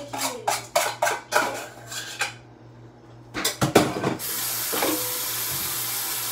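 Dishes and cutlery clattering as they are handled at a kitchen sink: a quick run of clinks, a short pause, then a louder clatter. About four seconds in, the tap starts running steadily.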